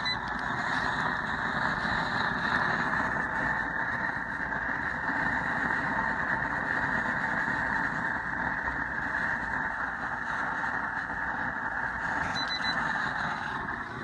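Propane torch burner firing into a small homemade refractory furnace: a steady rushing roar of the flame that drops away at the end.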